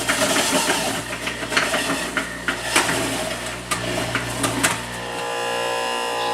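Scattered sharp clicks and rustling, then about five seconds in an electric juicer's motor starts and runs with a steady whine.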